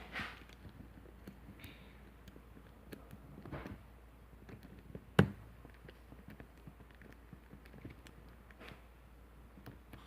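Scattered small clicks and taps as a disassembled pin-tumbler lock and its small parts are handled, with one sharp click about five seconds in.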